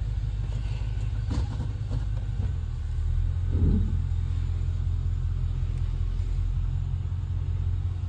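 A 1996 Chevrolet Impala SS's 5.7-liter LT1 V8 idling with a steady low rumble, heard from inside the cabin. About three and a half seconds in it swells briefly, then settles back to idle.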